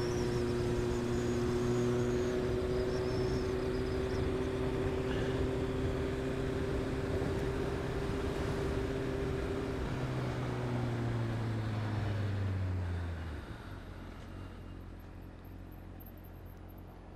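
Honda CB600F Hornet's inline-four engine, fitted with an SC-Project exhaust, running at a steady cruising speed. About ten seconds in the pitch falls as the revs drop off, and the sound then fades down quieter.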